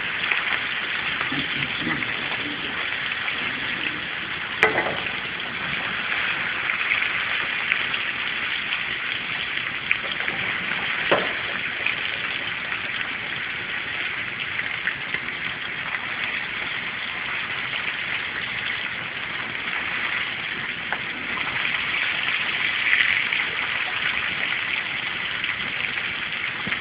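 Salmon fillets sizzling steadily in hot oil in a sauté pan, with a couple of sharp clicks.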